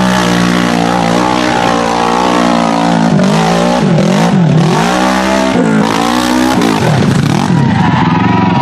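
Off-road vehicle engine running at high revs, with the revs dropping and quickly climbing back a few times as the throttle is let off and reapplied.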